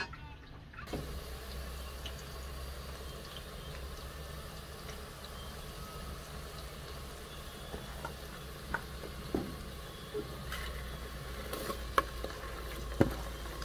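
A pot of broth simmering on a stove with a steady low rumble and hiss. From about eight seconds in come scattered clinks and knocks of a metal spoon against a plastic bowl and an aluminium pot as rice is scraped into it, the two loudest near the end.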